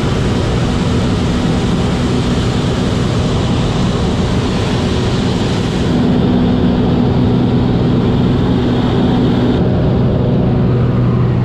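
Light aircraft's piston engine and propeller droning steadily in cruise, heard from inside the cabin. The tone shifts slightly about six seconds in.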